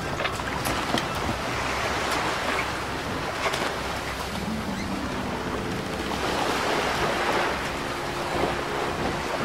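Sea waves washing, the noise swelling and easing every second or two.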